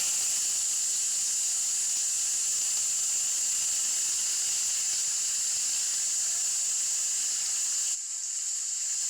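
Heavy rain falling: a steady high hiss, dipping briefly about eight seconds in.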